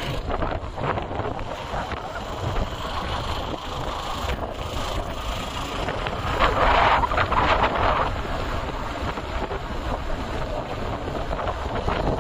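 Wind buffeting the microphone: a loud, steady rushing noise with low rumble underneath, swelling louder for a couple of seconds about six seconds in.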